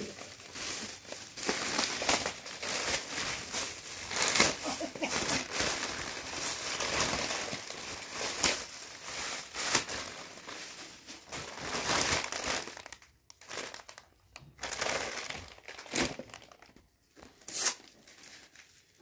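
Gift wrapping being crinkled and torn open as a present is unwrapped. The rustling is dense and continuous at first, then thins to occasional sharp crackles for the last several seconds.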